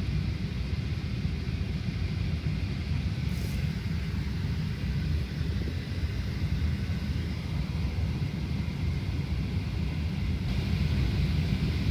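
Steady low rumble with a faint air hiss inside the cabin of a Boeing 737-800 airliner standing on the ground, with a light click about three seconds in.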